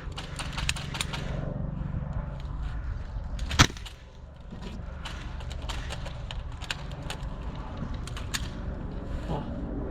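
Scattered airsoft gun shots, heard as sharp clicks and cracks, with one much louder, closer shot about three and a half seconds in.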